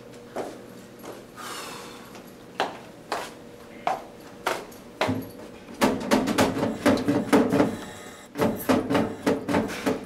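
Footsteps of flip-flops on a hard floor, then a quick run of clicks and knocks from a drinking fountain's push button being pressed over and over, with no sign of water flowing.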